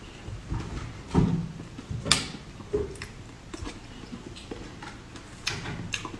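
Close-up mouth sounds of eating a soft jelly cake from a spoon: scattered wet smacks and small clicks, with a sharper click about two seconds in.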